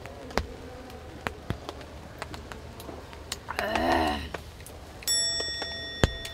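Light scattered ticks and clicks, a short hummed vocal sound about halfway through, then a bright chime that starts suddenly and rings on, with a sharp knock just before the end.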